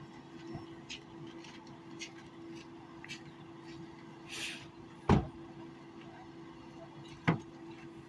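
Two car doors slamming shut about two seconds apart, over a steady hum with light clicks and a short hiss just before the first slam.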